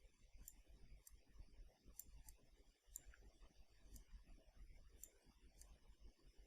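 Near silence with faint, scattered computer mouse clicks, about eight at irregular spacing.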